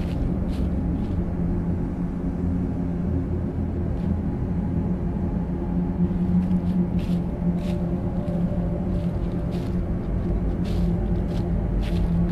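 Dark ambient drone: a steady low rumbling hum with several held low tones. Short crackling rustles come at irregular intervals and grow more frequent in the second half.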